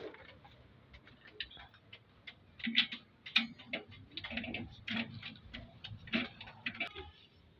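Irregular clicks and light knocks of tools and engine parts being handled, bunched more densely from about a third of the way in.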